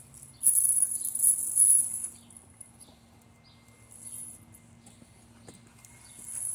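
Metal chain tether jangling and scraping along wet asphalt as a small dog moves, loud for the first couple of seconds, then dropping to faint clinks before rising again near the end.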